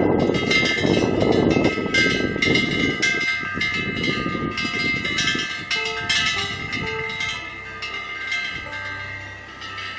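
Korean temple wind bell (punggyeong) hanging from the eaves, its clapper swung by gusting wind into repeated strikes that leave overlapping ringing tones. A rush of wind runs under it and eases off about halfway through.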